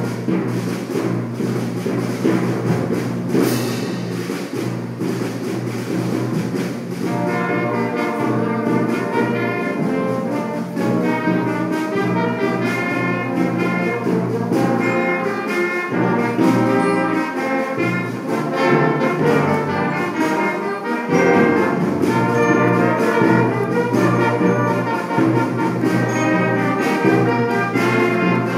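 Student brass band playing a piece, trumpets and trombones sounding held chords over a steady low part; the higher parts come in fuller about seven seconds in.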